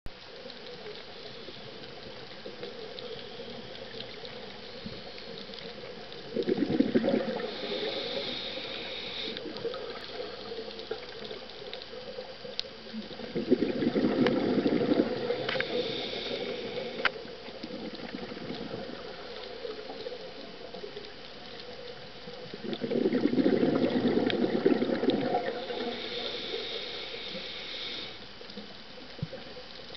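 Scuba diver breathing through a regulator underwater: three exhalations, each a gurgling rush of bubbles lasting a few seconds, about eight seconds apart, with a higher hiss following each one.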